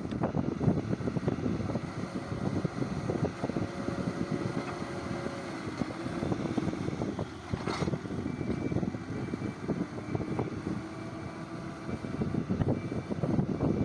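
Heavy earthmoving machine's engine running steadily, with a single sharp clank about eight seconds in.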